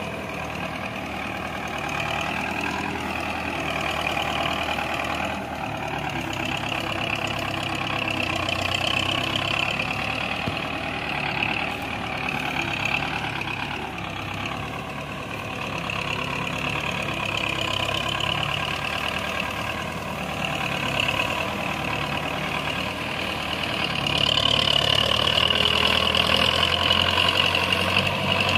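Diesel tractor engine running steadily as it slowly hauls a heavy load of sugarcane, growing louder near the end as it draws closer.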